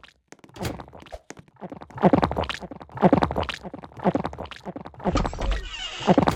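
Close-miked human throat sounds: a run of short, low-pitched gulps or burps, about one a second.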